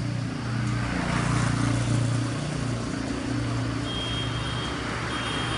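Steady low hum of an engine running, under a noisy outdoor background, with two brief high steady tones near the end.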